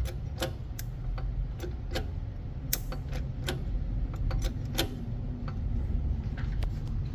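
Irregular sharp metallic clicks and ticks over a low steady hum as a bottle jack presses a steel sleeve into the transmission housing's bearing bore.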